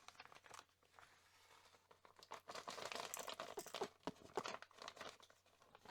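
Packaging crinkling and rustling as small kit parts are unpacked by hand. It comes as a faint run of small crackles from about two seconds in to about five seconds.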